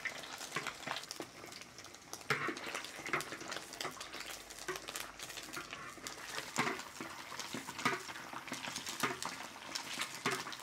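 Pork meatballs deep-frying in a wok of hot oil: a steady sizzle full of small crackles, with a metal ladle scraping and clinking against the wok now and then.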